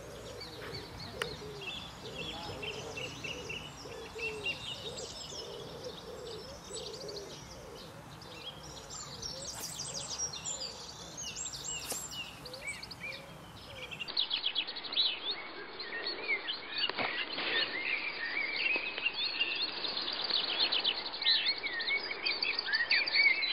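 Wild birds chirping and singing, many short calls overlapping, over a steady outdoor background hiss. About fourteen seconds in, the sound changes: the birdsong gets louder and the highest sounds drop away.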